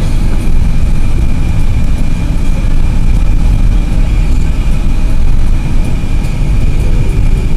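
A car driving along, heard from inside the cabin: a steady low rumble of engine and road noise, with a thin steady high whine above it.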